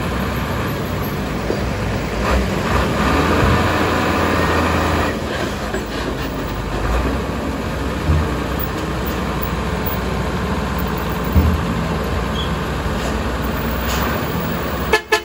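Heavy diesel truck engines running at low speed among passing road traffic, a steady rumble with a few brief knocks.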